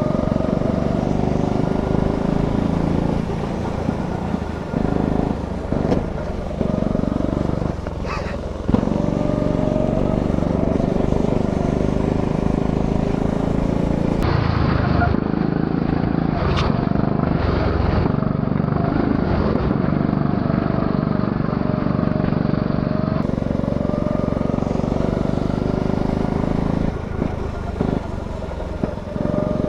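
Go-kart engine running hard on track, its pitch rising and falling as the kart lifts off for corners and accelerates out again.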